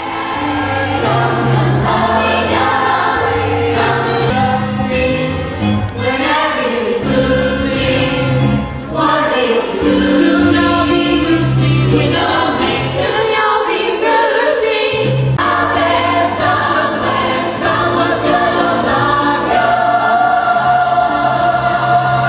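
A chorus of voices singing a musical-theatre number over instrumental accompaniment with a bass line.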